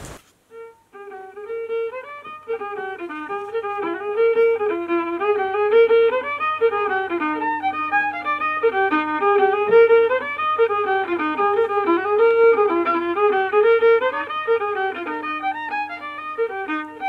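Background music: a solo fiddle playing a quick tune of short, rapidly changing notes, starting about a second in over a faint steady low drone.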